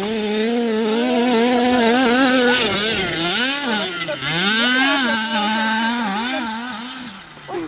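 Small two-stroke petrol engine of a 1/5-scale RC car revving hard. It holds high revs for about two seconds, then drops and climbs again several times as the throttle is eased and opened, and falls away near the end.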